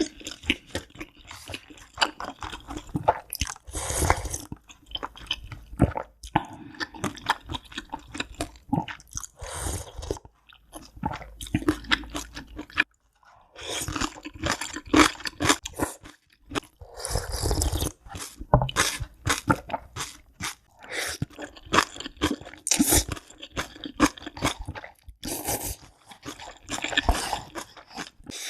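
Close-miked crunchy chewing and biting of food, a steady run of sharp crackling crunches, with a brief break about halfway through.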